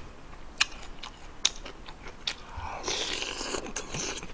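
Close-up eating sounds: chewing, with a few sharp clicks of a spoon in a metal soup pan, then a longer noisy stretch of mouth sound about three seconds in.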